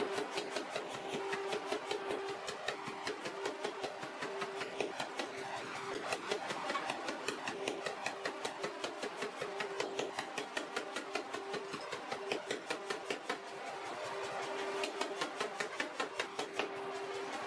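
Mechanical power hammer striking a glowing Damascus steel bar in a fast, even rhythm of several blows a second, drawing it out, over a steady hum that comes and goes.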